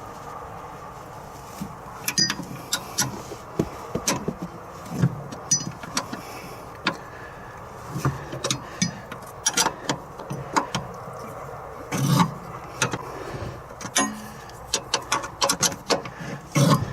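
Hand tools and metal parts clinking and knocking irregularly during work on a car's rear suspension strut, with a few duller thuds in between.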